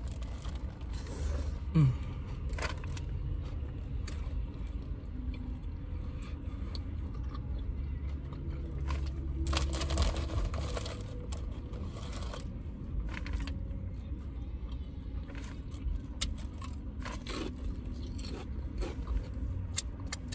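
Close-up eating sounds: chewing, smacking and crunching of a sandwich and crisp potato chips, in irregular clicks, with a denser run of crunching about ten seconds in. A short falling hum of the voice about two seconds in; a steady low hum underneath.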